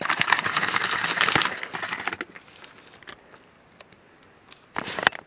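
A plastic drink bottle being handled and shaken: a dense crackling rattle for about two seconds, then quieter with a few clicks and a short burst of noise near the end.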